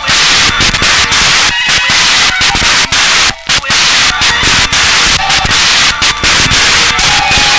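Harsh turntable noise music: a loud, dense static-like hiss chopped by frequent sudden cut-outs as the mixer is worked, with a few short pitched tones appearing near the end.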